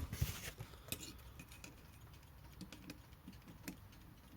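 A brief handling rustle and clunk, then light irregular clicks and faint ticking from a Haller Beatall alarm clock movement running poorly.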